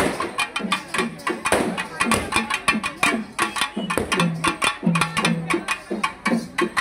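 Drums beaten in a fast, driving rhythm of sharp strikes over low booming beats, with firecrackers crackling for a moment about a second and a half in.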